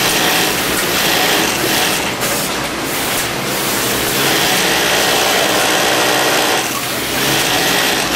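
Consew industrial sewing machine with a roller puller running at speed, stitching a seam through fabric. Steady machine noise, easing briefly about two seconds in and again near seven seconds.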